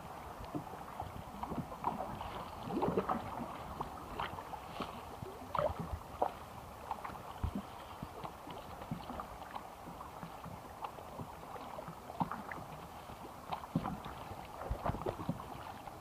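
Rushing river water around a small paddled boat, with irregular knocks and clatters throughout.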